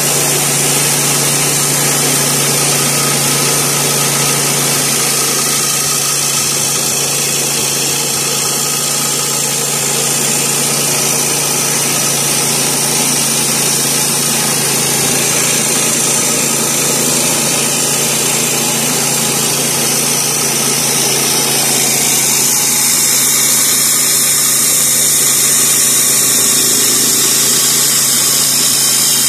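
Kohler 7 hp single-cylinder engine of a Woodland Mills HM122 bandsaw mill running steadily under load while the band blade saws lengthwise through sycamore, with a steady hiss of cutting above the engine's even hum.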